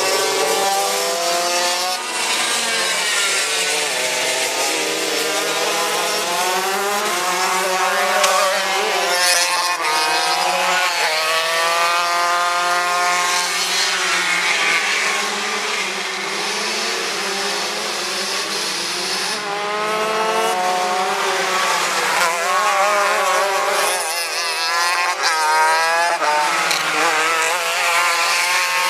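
Several racing kart engines running on the track, overlapping, their pitch rising and falling again and again as the karts pass and change speed.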